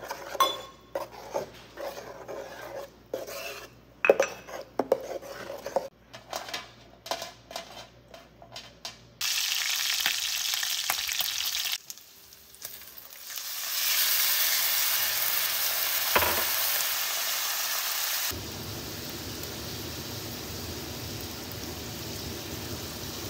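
A spoon stirring and clinking against a metal bowl of gazpacho, then, from about nine seconds in, chopped bacon frying in a cast iron skillet. The sizzle swells after a dark coffee glaze is poured into the pan, with a single knock, and settles into a steady bubbling hiss for the last few seconds.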